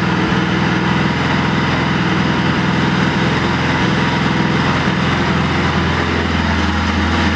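Bajaj Pulsar NS200's single-cylinder four-stroke engine running steadily at a raised idle of about 2500 rpm.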